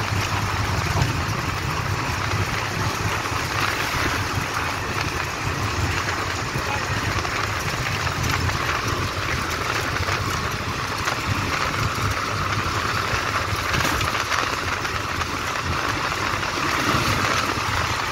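Steady engine hum and road and wind noise of a vehicle driving at speed, heard from inside.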